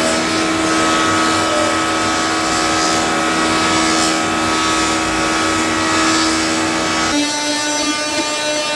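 Planer running steadily as wet oak rib stock is fed through it. Its motor note drops slightly about seven seconds in.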